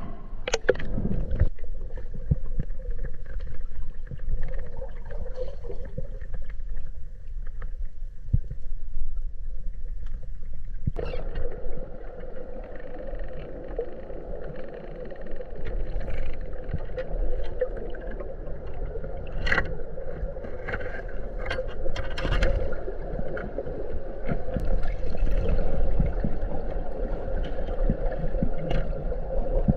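Small boat moving on a river: water noise with scattered knocks and scrapes against the hull. A steady hum comes in about a third of the way through.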